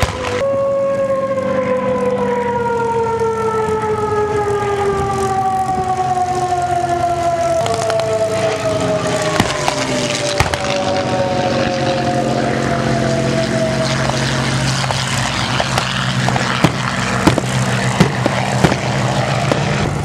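WWII-era single-engine piston fighter's engine droning as it flies past, its pitch falling slowly and steadily with the pass, followed by further engine drone with a lower steady note. Several sharp cracks stand out near the end.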